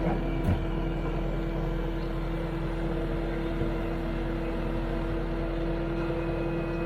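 An engine running steadily at a constant speed, an even hum with no revving. A brief knock about half a second in.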